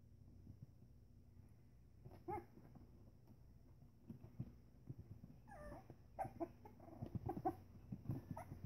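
Three-week-old Pembroke Welsh Corgi puppies making faint squeaks and whimpers as they tussle: one short call about two seconds in, then a run of little calls from about halfway through.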